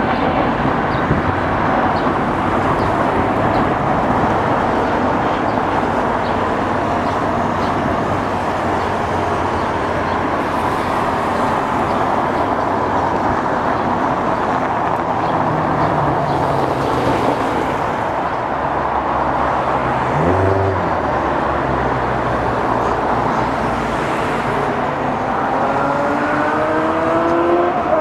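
Jet airliner engines running at takeoff power on climb-out, a loud steady roar. Near the end, rising whining tones come in.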